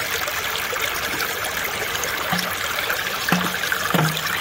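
Creek water running steadily through and around a sluice box, with a couple of brief light clicks near the end.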